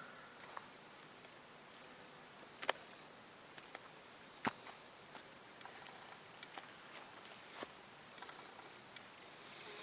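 Crickets chirping: a continuous high trill with a second insect chirping about twice a second. Two sharp clicks stand out, about a third and halfway through.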